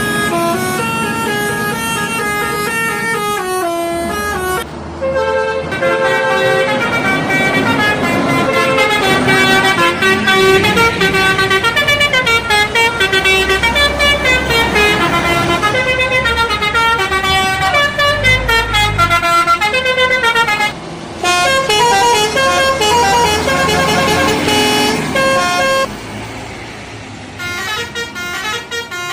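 Bus telolet horns playing fast melodic runs of stepped notes, one tune after another. There are brief breaks about five seconds in and about twenty-one seconds in, and the horns get quieter near the end.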